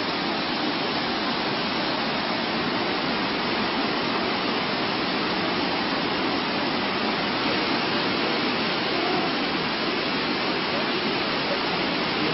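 Steady rushing noise that does not change in level or character.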